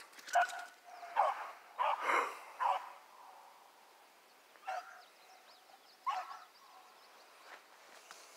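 Hunting hound barking in short calls while on a rabbit hunt: a quick run of barks in the first three seconds, then two more spaced out a couple of seconds apart.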